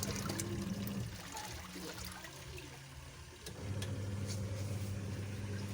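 Ramtoms 10 kg semi-automatic washing machine's wash motor churning water and washing powder to mix the soap: a steady motor hum with water sloshing. The hum stops about a second in and starts again about two and a half seconds later.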